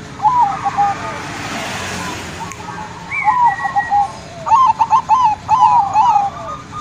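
Zebra dove (perkutut) cooing: short repeated notes, a few at first and then a quick run of about four notes a second from about two-thirds of the way in.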